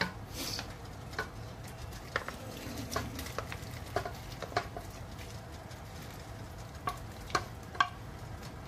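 Wooden spoon scraping and knocking against a metal skillet as cooked chicken pieces are tipped into a pot of sauce, a scattering of light clicks and scrapes, the sharpest near the end, over a steady low hum.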